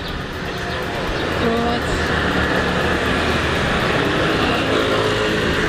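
Road traffic with motor scooters passing close by, getting louder about a second in and staying steady.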